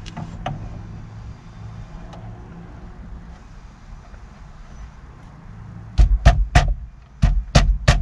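Steering-wheel hub on a car's steering column knocked into place: six heavy knocks in two quick sets of three near the end. Before them, only a few faint clicks of parts being handled.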